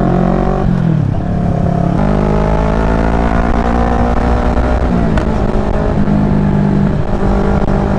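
CFMoto 400NK's 400 cc parallel-twin engine running hard under way. Its pitch dips about a second in, climbs steadily as the bike accelerates, then drops suddenly just after the five-second mark and holds fairly level, over a steady rush of wind and road noise.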